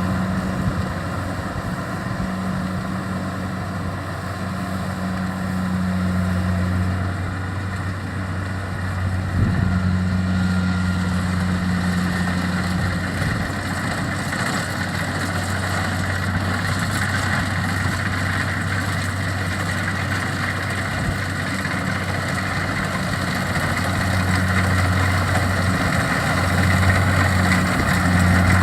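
Kubota DC-70 combine harvester's diesel engine running steadily while it works, with a constant mechanical whir from the machine.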